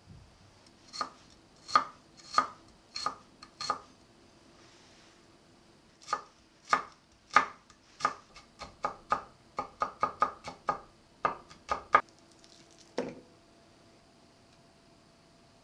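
Kitchen knife chopping on a cutting board: a few spaced strokes, a short pause, then a quicker run of about twenty chops, ending with one softer knock.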